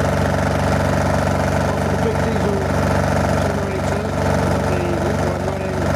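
A machine running steadily with a constant motor hum, with a faint wavering tone above it.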